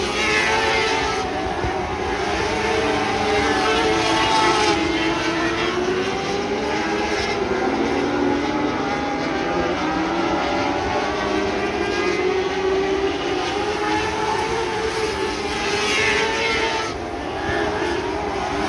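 Several winged lightning sprint cars racing on a dirt oval, their engines running at high revs with several pitches wavering over one another. A car passes close near the start and again about sixteen seconds in, its engine note rising and falling as it goes by.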